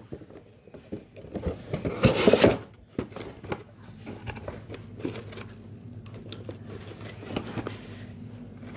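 Toy packaging being handled and opened: rustling, crinkling and small knocks, with one louder burst of rustling about two seconds in.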